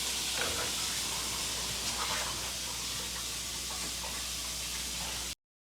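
Steady background hiss with a low hum underneath, no distinct events; it cuts off suddenly to silence near the end.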